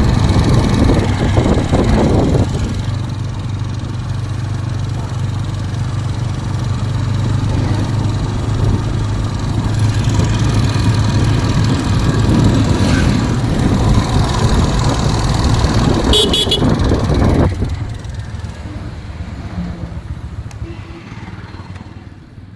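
Bajaj Pulsar N125 single-cylinder engine running, with the strange tick-tick sound the owner is showing. A short high beep comes about sixteen seconds in, and the engine sound drops away over the last few seconds.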